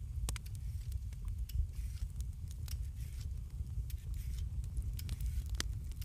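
Wood fire crackling: irregular sharp pops and snaps, several a second, over a steady low rumble.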